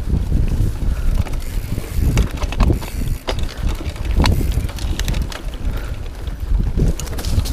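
Mountain bike riding over a rough dirt singletrack: the bike rattles and clicks with irregular knocks as the tyres roll over bumps, and wind buffets the microphone with a low rumble.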